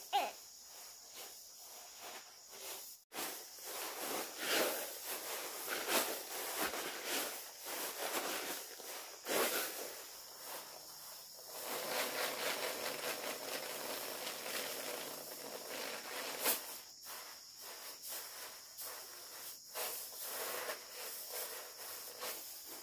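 Dry rice stalks rustling and loose grain pattering onto a tarp as upland rice is threshed by hand, shaken out and trodden underfoot, in irregular strokes. A steady high buzz of insects runs underneath.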